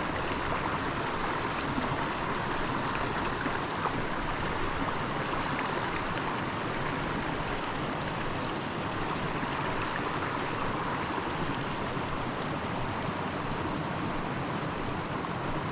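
Small mountain creek rushing and burbling over rocks in a steady, unbroken flow.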